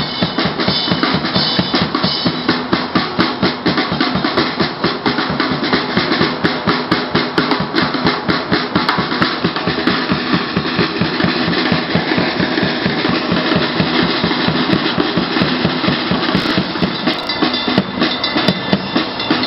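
Drum kit played continuously in a busy, driving beat, with kick drum, snare and cymbal strikes following each other in a dense, steady stream.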